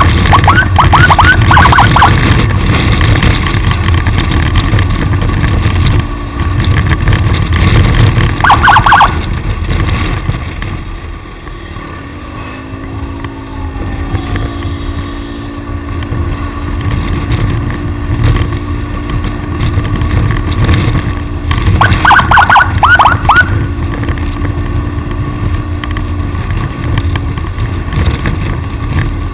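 Running vehicle on the road, with steady engine and road noise and wind buffeting the microphone. Three short bursts of a rapid, warbling high-pitched warning signal cut in: at the very start, about nine seconds in, and again around twenty-two seconds in.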